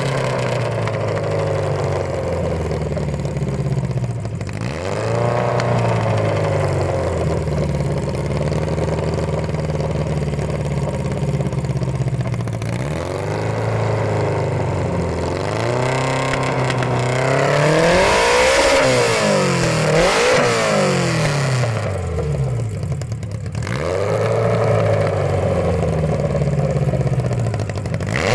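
Škoda 100's rear-mounted four-cylinder engine being revved. It holds raised revs for long stretches, dropping and climbing again several times, with a quick run of throttle blips a little past the middle.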